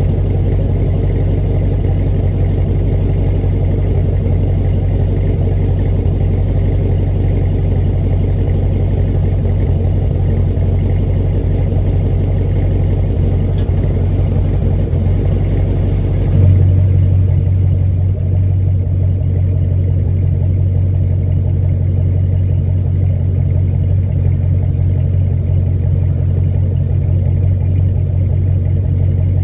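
6th-gen Chevrolet Camaro V8 idling through a Flowmaster midpipe and Flowmaster 10 Series mufflers, heard at the quad tailpipes as a steady low drone. About sixteen seconds in, the higher hiss drops away and the drone gets slightly stronger.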